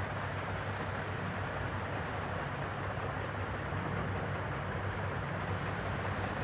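Steady background noise with a low hum, with no distinct events.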